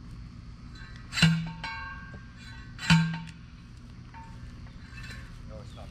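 Post driver striking a steel T-post twice, about a second and a half apart, each hit a sharp metallic clang that rings on briefly, driving the post into the ground.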